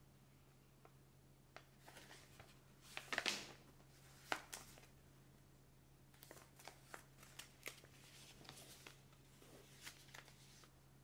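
Printed paper leaflet being unfolded and folded by hand: crisp paper rustles and crackles, loudest about three seconds in, then a run of small sharp creasing ticks.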